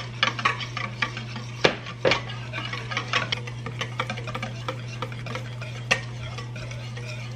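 Wire whisk stirring a thin milk-and-cornstarch pudding mixture in a stainless steel bowl: metal tines tick and scrape against the bowl in quick, irregular strokes, with a few louder clinks. A steady low hum runs underneath.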